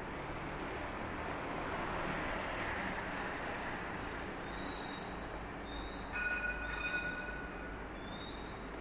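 A vehicle passing on a city street, its noise swelling and then fading, with short high chirps and a brief steady two-note tone about six seconds in.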